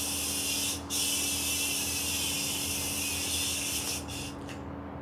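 A yo-yo spinning on its string during a Cyclone trick, giving a steady high hiss. The hiss breaks off briefly about a second in and stops abruptly about four seconds in.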